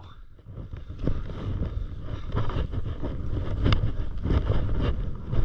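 Skis hissing and scraping over snow on a downhill run, with wind rumbling on the microphone. It is quiet for the first second, then builds, with a few short sharper scrapes along the way.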